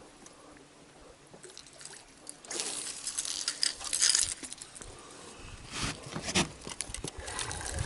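Bursts of water splashing mixed with light metallic clinks, strongest from about two and a half to four and a half seconds in and again around six seconds.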